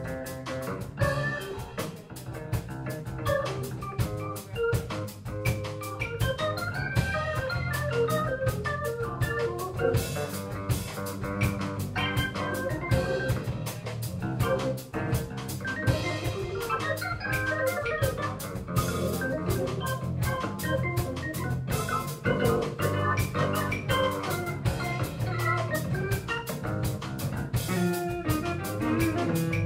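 Live band playing an instrumental passage: organ lines over drum kit and congas, with electric guitar.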